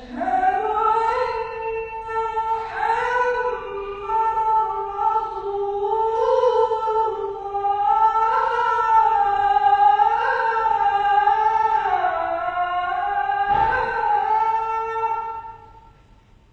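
A muezzin's solo voice chanting one long phrase of the adhan, the Islamic call to prayer, the pitch winding up and down in ornamented turns before it stops near the end. A brief knock sounds near the end of the phrase.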